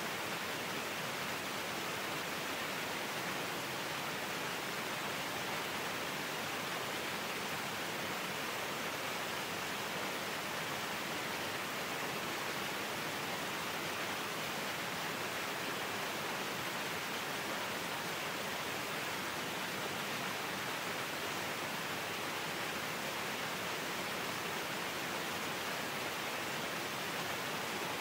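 A narrow waterfall pouring onto rocks and running off over the stones below: a steady, even rush of falling and splashing water.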